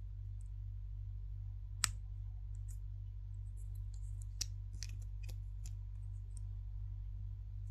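Plastic of a surprise egg and its toy being handled: scattered sharp clicks and light taps, the loudest about two seconds in, then a run of smaller clicks around the middle. A steady low electrical hum runs under them.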